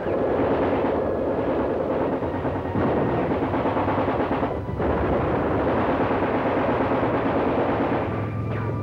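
Continuous battle sound of heavy gunfire, machine-gun fire and shell blasts running together into a dense, unbroken din. It is dull and lacking in treble, as on an old optical film soundtrack.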